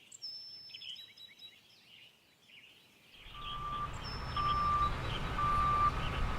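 Birds chirping for the first few seconds, then a vehicle's engine rumble fades in with a backup alarm beeping steadily, about one beep a second.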